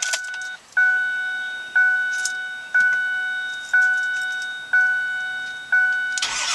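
Ford Super Duty's door-ajar warning chime, a single-pitched ding repeating steadily about once a second with the key on and the driver's door open. Near the end the 6.4 Power Stroke V8 diesel cranks and starts.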